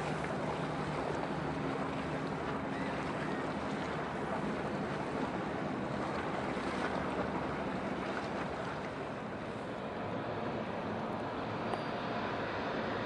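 Bulk carrier passing at sea: a steady low engine hum under a steady rush of wind and water noise.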